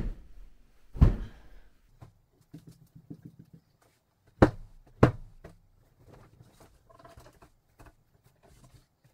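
Bedding being shaken and flapped while a bed is made: four loud whooshes of a pillow or duvet, two near the start and two about halfway, with softer rustling of sheets between.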